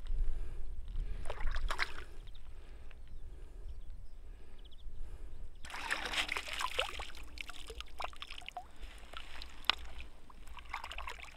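Water splashing and dripping as a large brown trout is held over the water and lowered back in for release, starting suddenly about halfway through, over a steady low rumble.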